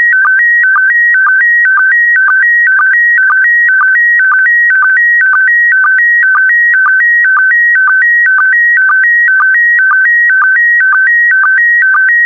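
Slow-scan TV (SSTV) signal in PD120 mode sending a picture: a loud, fast warble stepping between two high pitches, broken by a short lower blip about twice a second. Each blip is a line-sync pulse that starts the next pair of picture lines. The changing pitch carries the brightness and colour of the pixels.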